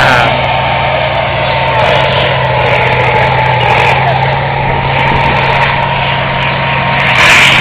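A heavy vehicle engine running steadily with a constant low hum and a thin whine over a rush of noise. Two short, sharp bursts of noise break in, one at the start and one near the end.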